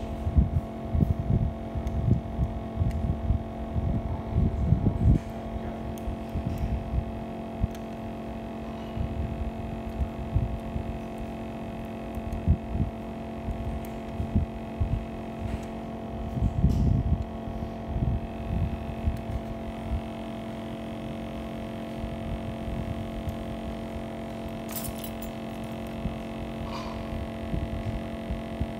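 Steady electrical hum made of several held tones, with irregular low thumps and knocks coming and going, and a couple of sharp clicks near the end.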